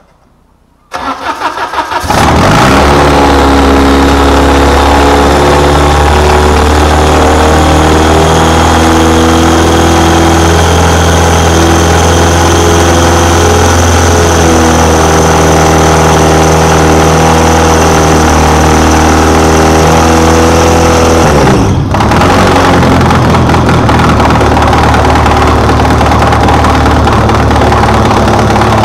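Peugeot XU9J4 1.9-litre 16-valve four-cylinder engine cranking about a second in, catching and running loud with no exhaust fitted. The running sounds a little rough, which the owner thinks may be a camshaft not timed correctly. It briefly falters about three-quarters of the way through, then runs on.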